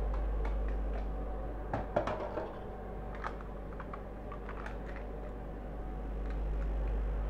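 Light plastic clicks and crinkles as a crème fraîche tub is handled and its lid pried open, after a louder knock about two seconds in. A steady low hum runs underneath.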